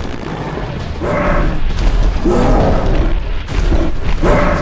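Action-film sound mix of a giant ape charging: three loud growling bursts about a second and a half apart over deep booming rumbles, with orchestral score underneath.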